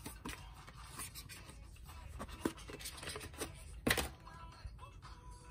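Paper card sleeve and a stack of glossy photocards being handled: light scratchy rustles and scrapes of card stock, with a sharp click about four seconds in as the stack comes free.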